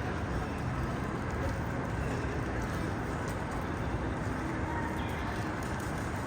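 Steady busy ambience with indistinct background voices.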